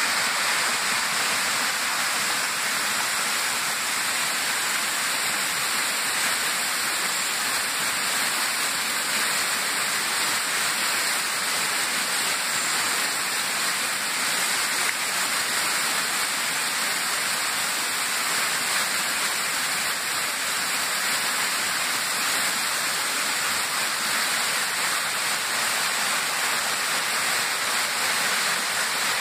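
Water of a small rocky stream cascading over boulders: a steady, even rush.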